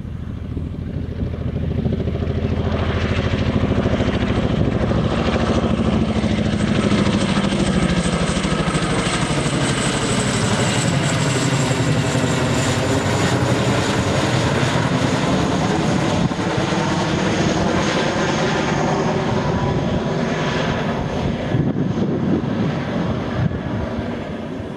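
Boeing CH-47 Chinook tandem-rotor helicopter flying low overhead: the rapid beat of its two rotors and the high whine of its turboshaft engines grow louder over the first few seconds. The whine falls slowly in pitch as it passes, and the sound eases off near the end.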